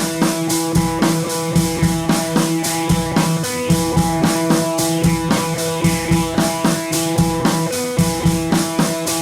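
Background rock music with electric guitar and a drum kit keeping a steady beat of about two hits a second.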